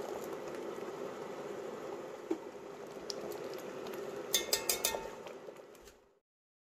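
Thick tomato-and-cashew curry sauce bubbling steadily in a pot, with a quick run of light clicks from a metal measuring spoon about four and a half seconds in. The sound fades and cuts off about six seconds in.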